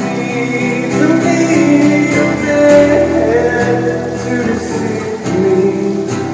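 Music: acoustic guitar with a male voice singing.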